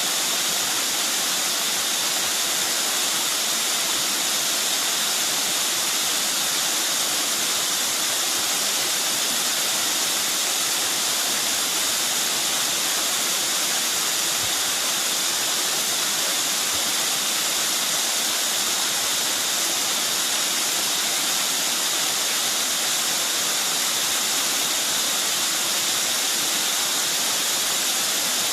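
Mountain stream running steadily: a continuous, even rush of flowing water with no breaks.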